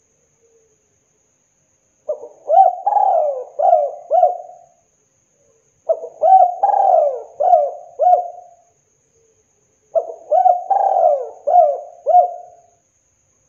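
Spotted dove cooing: three song phrases of about five coos each, roughly four seconds apart.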